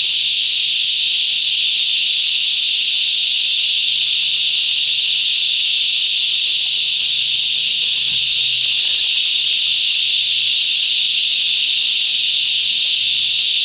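Cicadas calling in a loud chorus: a steady, high-pitched drone that does not let up.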